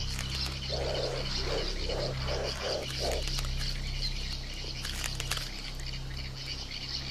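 A run of six short, low croaking calls, about two a second, over a constant high chirring and a steady low hum.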